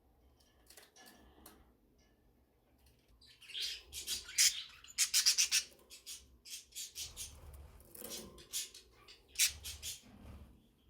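Budgerigars chirping and squawking in quick, sharp calls, starting about three and a half seconds in.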